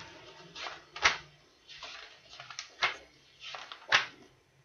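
Rustling and knocking from a book being handled: a few short, sharp sounds, roughly a second apart.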